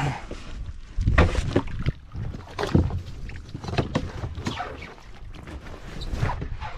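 Irregular knocks and scrapes from the Big Pond Kayaks Mannta sea kayak's hull as the paddler shifts in the cockpit and the boat grinds over shingle in shallow water.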